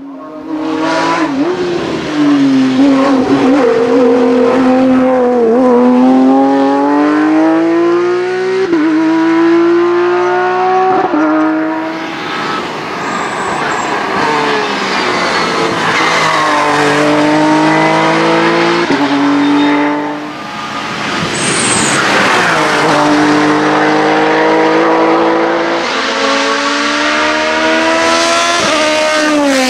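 Race car engines at full throttle, the pitch climbing through each gear with quick upshifts that drop it back, car after car. The cars include a Porsche 991.1 Cup with its flat-six and an Osella Honda sports prototype.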